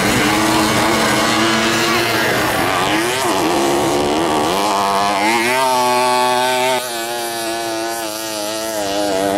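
Several 50cc two-stroke racing mopeds revving as they ride past, engine pitch rising and falling with the throttle. The loudest, closest one holds a high, steady note about five seconds in, then its sound drops away suddenly near seven seconds.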